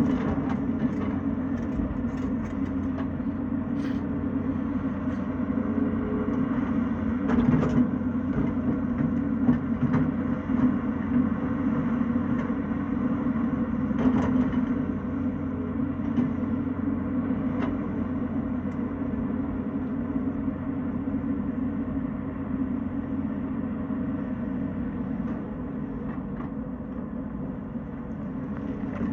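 Tata Hitachi excavator's diesel engine running steadily under load, with occasional knocks and clatters.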